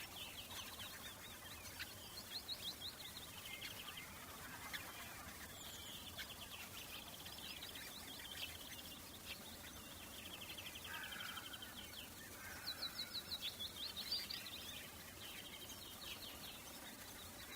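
Summer bird ambience: several songbirds singing overlapping fast trills of rapidly repeated high notes, over a steady outdoor hiss. The trilling comes in bouts and is busiest about two seconds in and again near thirteen seconds.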